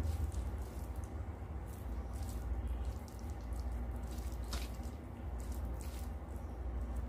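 Fingers mixing rice with mutton curry on a metal plate: scattered small wet squishes and clicks, over a steady low hum.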